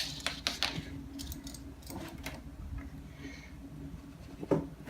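Light clicks and plastic handling noises as a mouse cable is plugged into a Macintosh keyboard, with one sharper click about four and a half seconds in.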